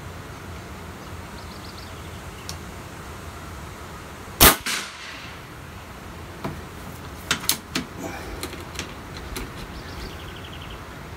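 A single shot from an M25 9mm (.35 calibre) big-bore air rifle about four and a half seconds in: one sharp crack with a brief echo. A few seconds later there are several light clicks as the rifle is handled.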